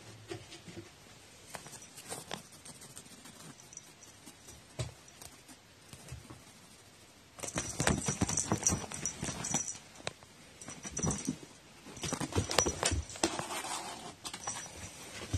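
A cat brushing and bumping right against the phone's microphone and shifting on a cloth blanket: faint scattered rustles at first, then from about seven seconds in loud, close rustling and knocking in clusters with short pauses.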